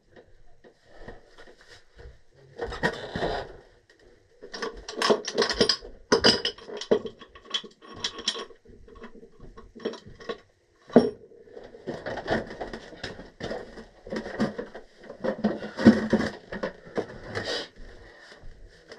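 Irregular clinks, scrapes and knocks of hand tools and metal pipe fittings being worked during a furnace gas valve replacement, with a sharp knock a little past the middle.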